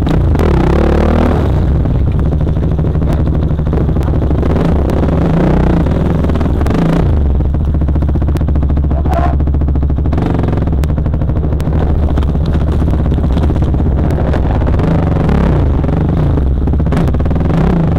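KTM dirt bike engine running loud and steady while the bike is ridden over a wooded trail, with its pitch shifting in steps as the revs change.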